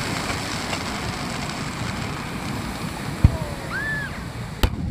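Aerial firework shells bursting over the sea: a low boom about three seconds in and a sharper, louder bang near the end. Waves wash steadily on the shore throughout.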